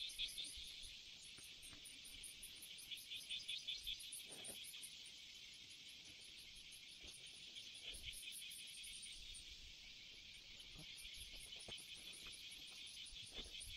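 Outdoor insect chorus: a steady, rapidly pulsing trill, with a second, higher pulsing call above it. A few faint low thuds come through about four and eight seconds in.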